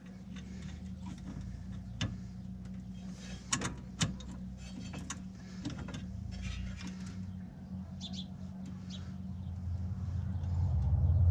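Hand tools and metal parts clicking and clinking while a side-by-side's parking brake cable is tightened, a few sharp clicks standing out. A steady low hum runs underneath and grows louder near the end.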